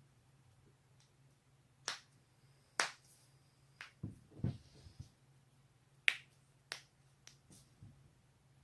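Joints cracking: a scattered series of sharp pops, the loudest about three seconds in, with a few soft low thumps in the middle, over a faint steady hum.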